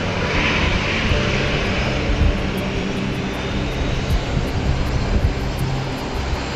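Dash 8 turboprop airliner departing, its engines and propellers running with a steady hum and low tones.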